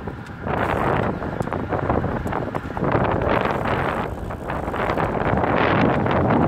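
Wind buffeting the microphone of a camera carried on a moving bicycle: a loud rushing noise that swells and dips every second or so.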